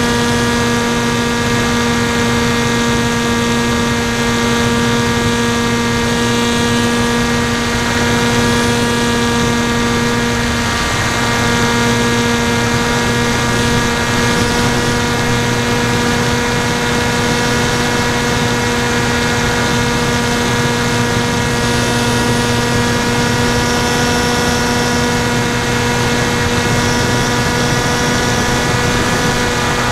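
NTM 2836 1200kv brushless motor driving a 10x5 APC propeller on an FX-61 Phantom flying wing in cruise flight, heard through the onboard camera: a steady, even-pitched motor and propeller drone with a rush of airflow noise underneath.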